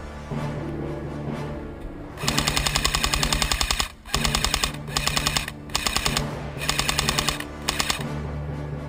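Airsoft rifle firing on full-auto at about ten shots a second: one long burst of about a second and a half, then several shorter bursts. Background music with a steady beat runs underneath.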